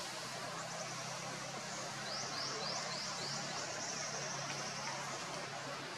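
Steady outdoor background hiss, with a bird's quick run of about five high, falling chirps about two seconds in.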